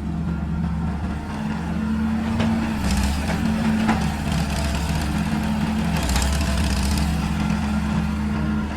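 Excavator engine running steadily, its pitch shifting a little as the machine works, with a few short knocks and scrapes in the middle.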